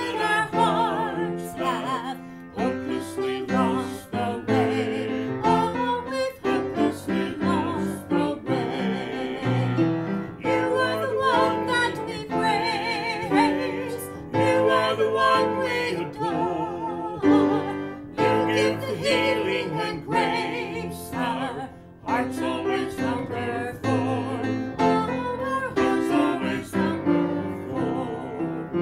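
A woman and a man singing together with piano accompaniment, the woman playing the piano as she sings; the voices carry a clear vibrato.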